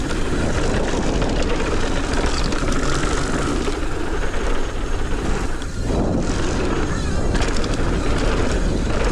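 Wind rushing over the microphone and the tyres of a mountain bike rolling over a dry dirt trail, a steady loud rumble with a brief lull about six seconds in.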